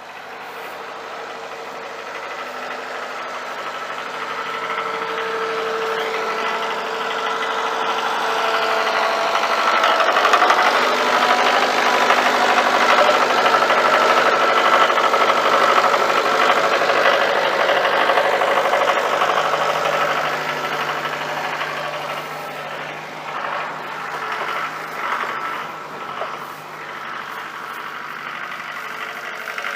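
An engine running steadily, building up over the first several seconds, loudest through the middle, then easing off toward the end.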